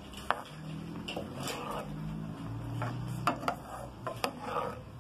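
A spoon stirring thick chile sauce in a frying pan, scraping along the pan with several sharp knocks against it.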